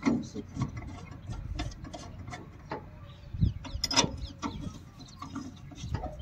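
Combine harvester cutter drive gearbox being turned over by hand at its pulley after repair. Its gears and shaft give a string of irregular clicks and knocks, the loudest about four seconds in.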